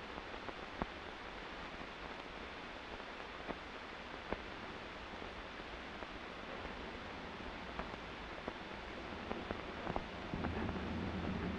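Steady hiss with a few scattered sharp clicks; about ten seconds in, a cargo truck's engine comes in, running low and steady.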